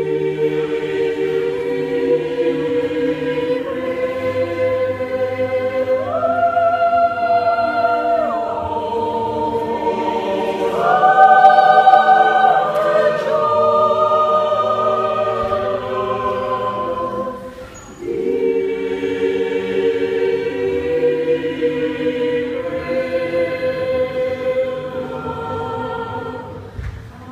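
Mixed choir of men and women singing long held chords in several parts, swelling to its loudest, highest notes near the middle, with a brief break about two-thirds in before the next phrase.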